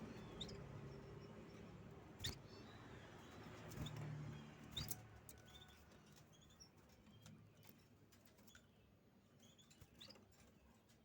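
Canary giving scattered faint, short chirps and calls rather than full song, with a few sharp clicks in between.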